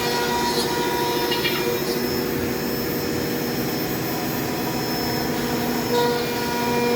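CNC machine cutting: a steady mechanical whine with held tones over a noisy rush, running evenly throughout.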